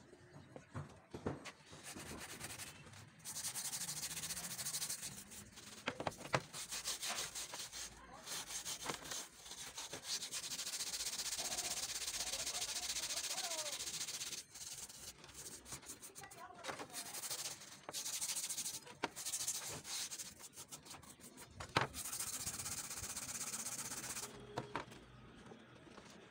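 Steel wool scrubbing the rusty iron blade of a bill hook in a shallow tray of liquid. The rasping strokes come in runs of a few seconds, with a couple of sharp knocks, one near the end.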